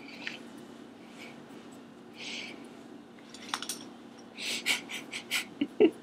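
Quiet room with a steady low electrical hum and a few soft breaths, then a quick run of short breathy bursts from about four and a half seconds in as a woman starts to laugh.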